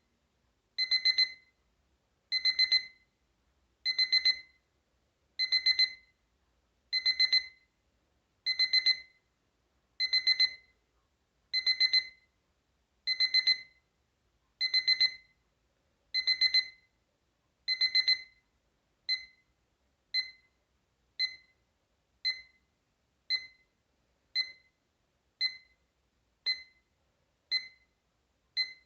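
Capello CA-43 digital alarm clock's electronic alarm beeping, a high-pitched beep. For the first two thirds it comes in quick bursts of four, repeating about every second and a half. It then switches to single, quieter beeps about once a second.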